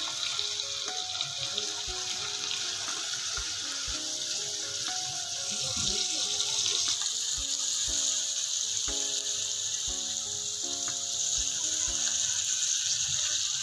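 Cornflour-coated mandeli fish deep-frying in hot oil: a steady sizzling hiss that gets a little louder about six seconds in. Light background music plays underneath.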